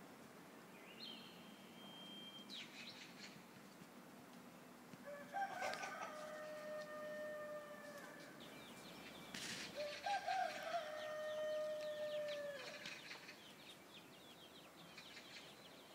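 A rooster crowing twice: two long calls a few seconds apart, each rising at the start and then held on a steady pitch.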